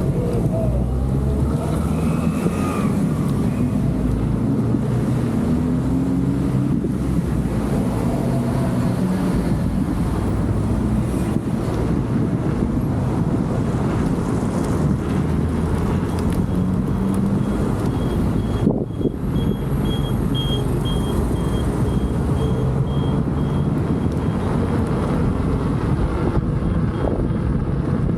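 Leaperkim Patton electric unicycle's tyre rolling at speed: steady, loud tyre noise with a low hum that rises and falls in pitch as the speed changes, and wind on the microphone.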